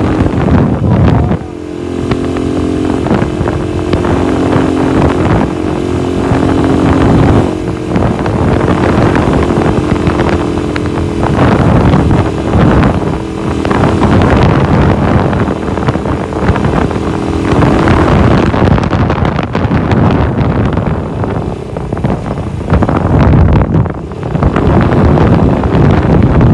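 Motorcycle engine running at a steady speed while riding, with wind buffeting the microphone.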